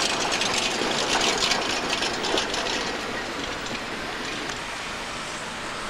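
Tatra KT4D articulated tram running past on street track: a steady rumble of steel wheels on rail with scattered clicks over the rail joints, fading slowly as it moves away.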